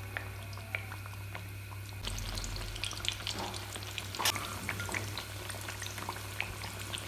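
Besan-batter-topped naan shallow-frying in hot oil on a medium flame: a steady sizzle with scattered crackles and pops, and one sharper pop about four seconds in.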